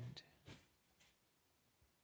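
Near silence: room tone with a few faint, short clicks.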